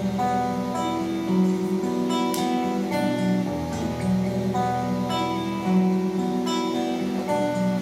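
Acoustic guitar played solo: held chords over a moving bass line, the instrumental introduction to a bard song.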